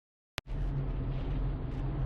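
Silence, then a click just under half a second in as the recording starts, followed by the steady low rumble of a 2019 Subaru Forester heard from inside the cabin, with a faint high tick about a second and a half in.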